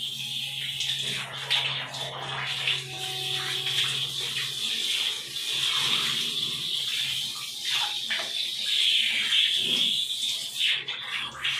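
Handheld shower hose spraying water over a dog's wet coat during a bath, a steady hiss of running water with splashing.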